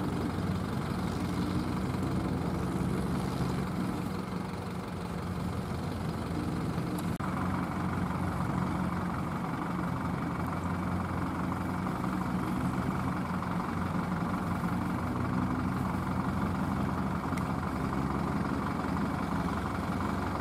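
Kubota ZL3001 tractor's diesel engine running steadily while it powers a straw baler.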